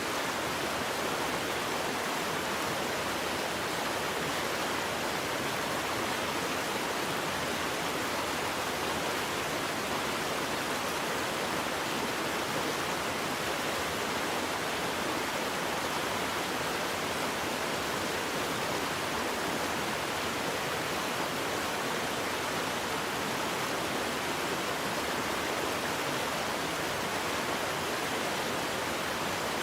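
Waterfall: a steady, even rush of falling water, unbroken and without changes.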